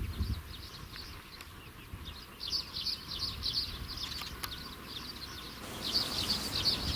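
Songbirds chirping in quick trills: a burst about two seconds in and another near the end.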